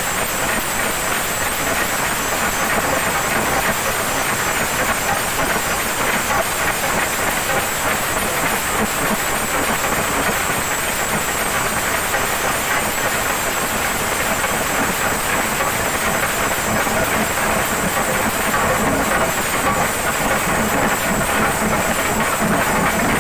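Chenda drums of a drum troupe played together with sticks: a loud, dense, continuous rolling beat without a break, with a bright hiss on top.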